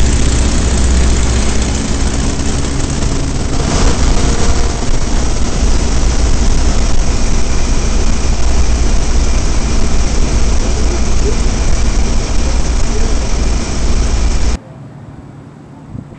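Open-cockpit biplane's engine and propeller running hard with heavy wind rush, heard from inside the cockpit during aerobatic flight. The sound cuts off abruptly about fourteen and a half seconds in, leaving a much fainter background.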